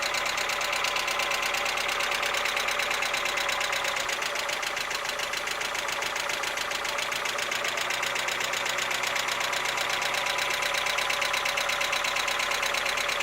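Mazda Miata four-cylinder engine idling with a steady, rapid ticking. This is lifter tick from the hydraulic lash adjusters, a common Miata problem, which the owner hopes Seafoam will clean out.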